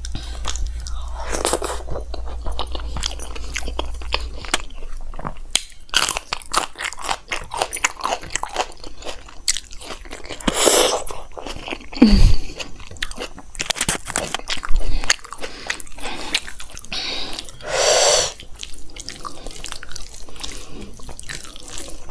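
Close-miked eating sounds of a mouthful of chickpea curry and rice taken by hand: chewing and crunching with many small wet mouth clicks.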